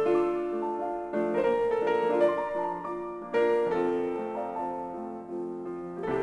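Piano music: chords struck and left to ring, a new one about every second.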